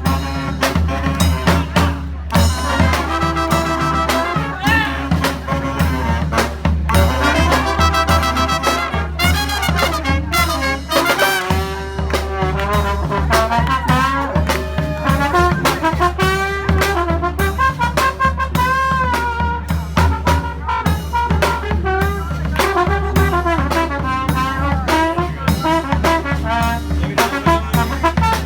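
Brass band playing a tune: trumpets and trombones carry the melody over a steady beat of drum hits.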